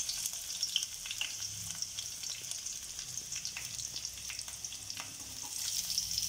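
A tempering of mustard seeds, dry red chilli and green chillies sizzling in hot sesame oil in a pan: a steady hiss with scattered small crackles. A wooden spatula stirs through it.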